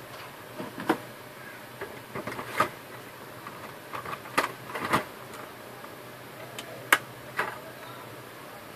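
About six sharp clicks and knocks at irregular spacing, over a steady low hum.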